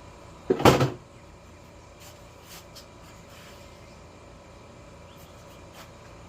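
A short, loud clattering knock about half a second in as the unbolted shroud is pulled free, followed by a few faint light taps.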